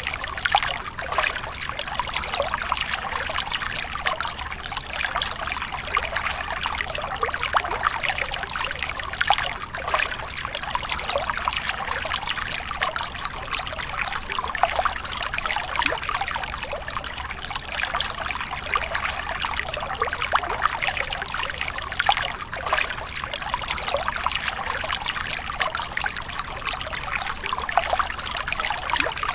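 A small stream of water trickling and splashing steadily over rocks into a shallow pool, a continuous bubbling patter.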